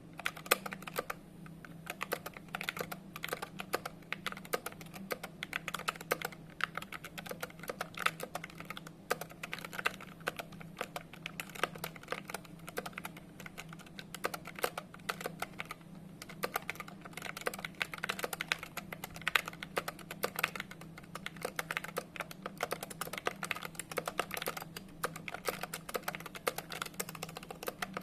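Skyloong SK61 mechanical keyboard being typed on fast and continuously: a dense, uneven clatter of key clicks over a steady low hum.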